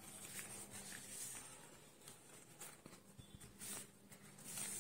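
Faint rustling and a few light ticks as rubber-gloved hands handle a cloth tape measure around a silicone dildo, over a low steady hum.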